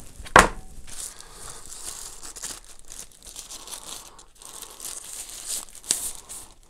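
Thin frosted plastic bag crinkling and rustling as a power bank is handled and slid out of it, with a sharp, loud crackle about half a second in and another near the end.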